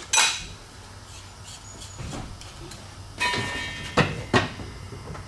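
Metal clanking from fork parts and tools handled on a metal workbench. A clink just after the start, a ringing metallic clank about three seconds in, then two sharp knocks.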